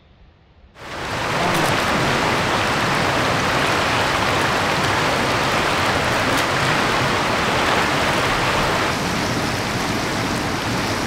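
Rushing mountain creek: a steady, even hiss of flowing water that comes in about a second in and drops a little near the end.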